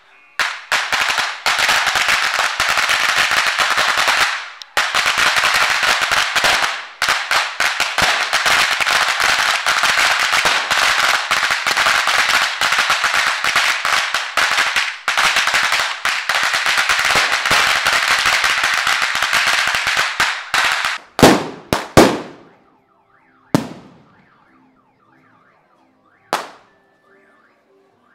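A roll of 'ametralladora' firecrackers going off in a long, dense, rapid crackle, with two short breaks, that ends after about twenty seconds. Then four separate loud bangs follow, each echoing.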